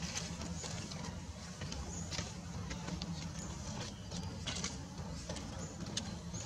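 Outdoor background noise: a steady low rumble with scattered faint clicks and rustles.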